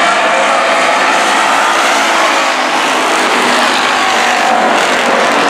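Dirt-track stock cars racing, several engines running together at speed in a steady, loud drone.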